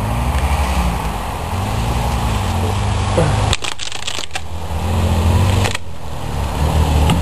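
Pickup truck engine running and revving, its pitch swelling up and down again and again, as it pulls the boat hull on a rope. A few brief crackles come in the middle.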